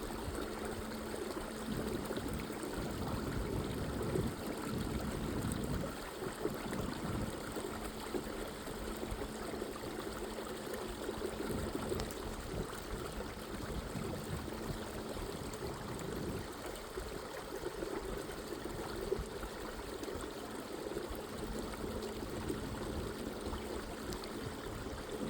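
Creek water flowing, a steady rushing.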